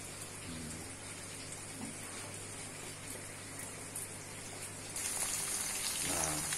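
Aquarium aeration bubbling steadily with a low hum. About five seconds in it gives way to louder sizzling of small climbing perch (betok) frying in oil in a pan.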